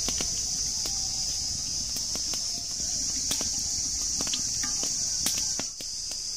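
Cooking oil pouring in a thin stream from a plastic bottle into a large aluminium pot, a steady low trickling rush that stops a little before the end. A constant high-pitched insect chorus runs above it, with scattered small clicks.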